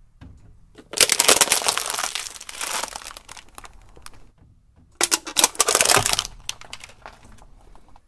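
A stack of nested clear plastic cups crushed under a car tyre, crackling and crunching in two bursts: one about a second in and a shorter one about five seconds in.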